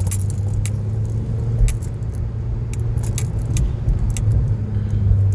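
Volvo C30 T5's turbocharged five-cylinder engine running at low speed with a steady low drone, under irregular light metallic clicks and jingling throughout.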